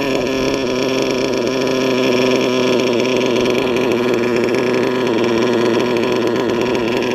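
LRP .32 nitro engine with a Novarossi race carb running at high revs in an RC truggy, its pitch wavering gently up and down with throttle and distance. The high-speed needle is set a bit too lean, which the owner thinks has it screaming.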